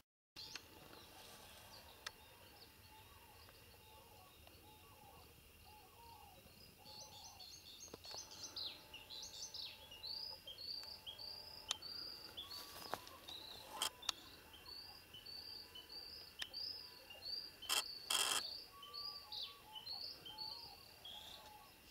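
Small songbird singing, repeating short high chirping notes again and again from about a third of the way in, over fainter, lower bird calls. A few sharp clicks and one short, louder rustling noise come about three quarters of the way through.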